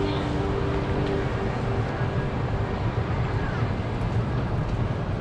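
City street traffic: a steady low rumble, with a passing vehicle's engine hum that fades out in the first second or so.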